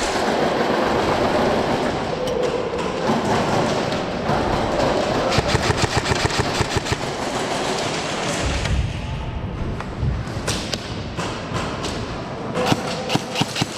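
Airsoft guns firing in rapid runs of sharp cracks, over steady rustling and scuffing close to the microphone.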